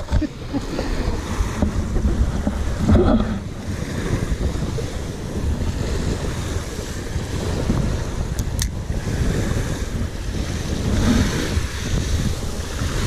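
Small waves washing in and out on a shingle beach, with wind buffeting the microphone.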